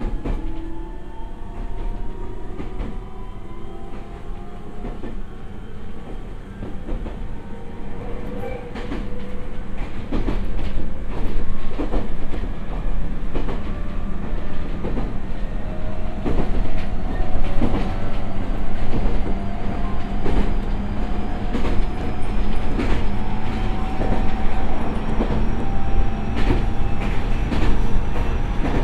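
Toyo IGBT-VVVF inverter and traction motors of a JR East E127-0 series electric train whining with a steadily rising pitch as the train accelerates from about 25 to 80 km/h, heard inside the car. Wheels click over rail joints, the clicks coming faster and growing louder as speed builds.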